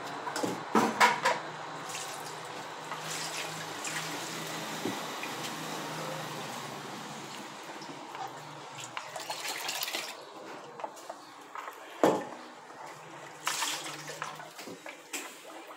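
Liquid maize atole sloshing as it is stirred in a clay pot with a wooden paddle, with knocks and clanks of a metal bowl: a cluster about a second in and one sharp clank about twelve seconds in. Near the end, liquid is poured from a plastic jug into the metal bowl.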